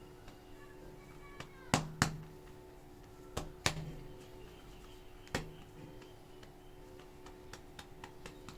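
Sharp clicks and snaps from plastic clay tubs being opened and handled. Two come close together about two seconds in, two more about three and a half seconds in, another about five seconds in, and lighter ticks follow near the end, over a steady low hum.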